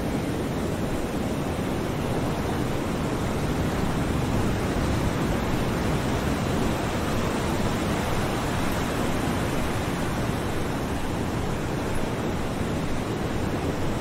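Ocean waves washing onto a shore: a steady, even rush of surf with no single breaker standing out.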